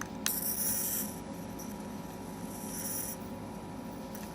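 Electric arc lighter's spark crackling with a high, hissing buzz, twice, each for under a second, after a click at the start.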